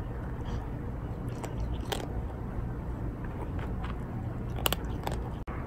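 Calico cat crunching dry kibble from a plastic tub, with a few sharp crunches, the loudest near the end. A steady low rumble runs underneath.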